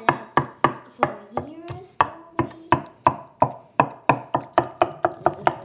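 A broad-bladed kitchen knife chopping cooked meat on a wooden cutting board, about three sharp knocks a second, each with a short woody ring, getting a little faster near the end.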